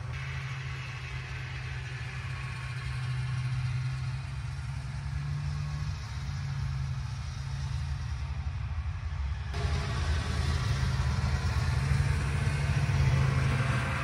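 Polaris Trans Sport snowmobile's two-stroke engine running steadily, growing louder in the second half as the sled comes closer.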